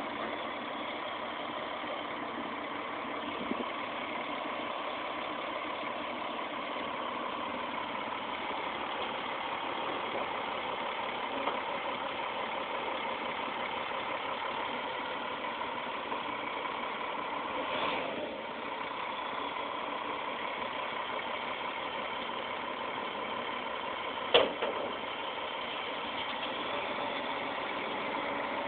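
Cummins M11 diesel engine of a front-discharge concrete mixer truck idling steadily. A single sharp knock sounds late on.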